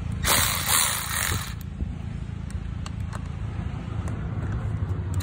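Cordless electric ratchet whirring for about a second and a half as it loosens a car battery's terminal nut to disconnect the battery, followed by a few faint clicks, over a steady low rumble.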